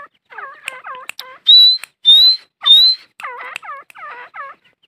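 Female grey francolins (teetar) calling in quick runs of short notes that drop in pitch, several a second. About one and a half seconds in come three loud, clear whistles, each rising slightly and lasting a fraction of a second.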